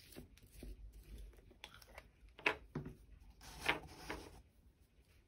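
Small handling sounds as a plastic acrylic paint bottle is opened and the canvas board is turned on a cutting mat: a few short scrapes and clicks, the two loudest about two and a half and three and a half seconds in.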